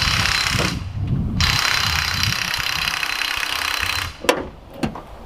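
Supercharged Mercury Marauder V8 run up in two loud bursts, a short one and then a longer one of about three seconds, with a steady high supercharger whine over the engine noise. A few sharp clicks follow near the end.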